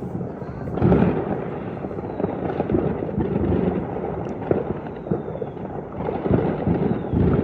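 New Year fireworks going off, a continuous rumble of many overlapping bangs and booms, with louder booms about a second in and near the end.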